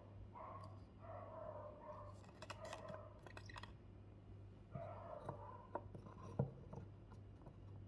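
Hollow wooden nesting-doll pieces being handled on a table: light clicks and rubs, a cluster of clicks about three seconds in, and a sharper wooden knock about six seconds in as one doll is fitted into another. A low steady hum runs underneath.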